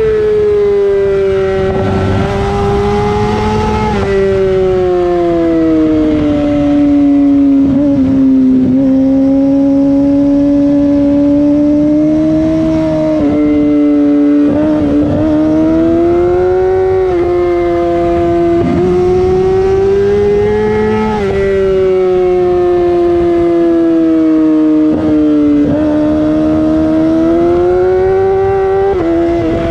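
Yamaha YZF-R6 inline-four with a LeoVince SBK full-system exhaust, ridden hard on track and held high in the revs. Its pitch slowly rises and falls, broken briefly every few seconds as it shifts gear.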